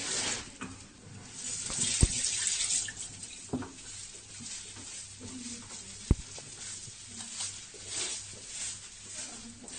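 Hands being washed under a running tap, water splashing into a sink, louder for a second or so about two seconds in. Two short, sharp clicks about two and six seconds in.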